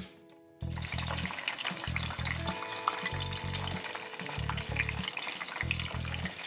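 Sliced onions sizzling and crackling as they fry in hot oil in a kadai, starting about half a second in. Background music with a steady low beat plays underneath.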